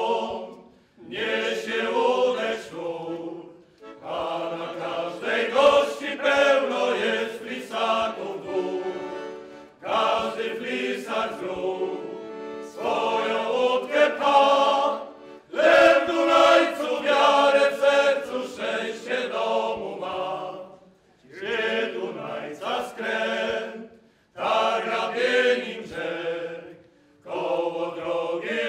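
Men's choir of Pieniny raftsmen singing in full voice, in phrases of a few seconds with short breaks for breath between them.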